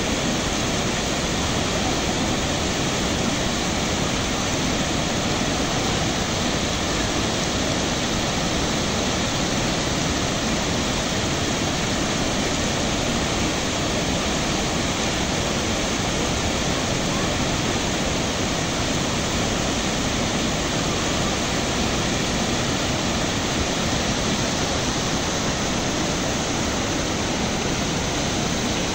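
Small waterfall cascading over rocks: a steady rushing of water.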